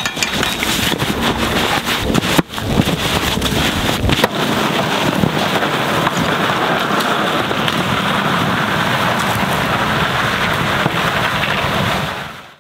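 Wind buffeting the microphone of a camera riding on a fat-tire e-bike, with the tyres crunching over snow and crackles and knocks in the first few seconds. It fades out near the end.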